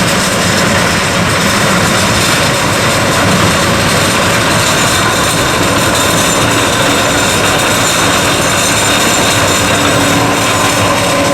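John Deere 9610 combine harvester running steadily while harvesting corn, a loud, even machine noise with faint steady tones.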